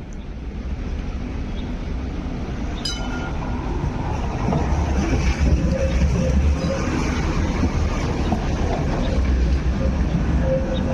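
MTR Light Rail vehicle passing close at low speed, its wheels rumbling on the track, louder from about four seconds in, with brief thin whines from the wheels. A single short ringing strike about three seconds in.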